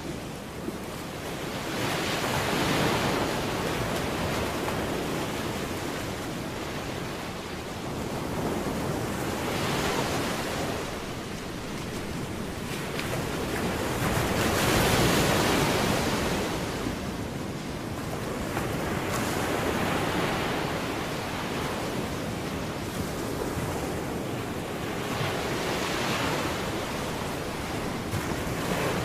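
Ocean surf: waves washing onto a shore, swelling and falling back about five times, once every five or six seconds.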